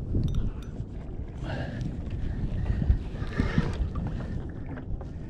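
Wind buffeting the microphone and water washing against a kayak's hull, a continuous rough rumble, with a few short hissy bursts about every two seconds.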